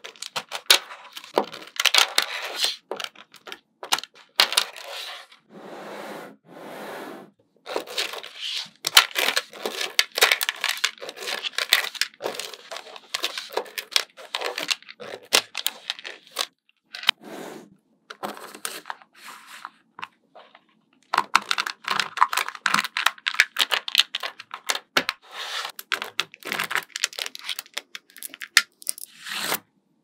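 Small magnetic balls clicking and rattling against one another in rapid runs of sharp clicks, broken by a few short pauses.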